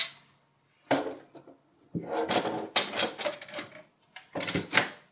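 Front panel of a Lenovo ThinkStation S20 tower case being fitted back onto the steel chassis. A sharp click at the start, a knock about a second in, a run of clattering and scraping in the middle, and more clicks and knocks near the end as the panel is pushed into place.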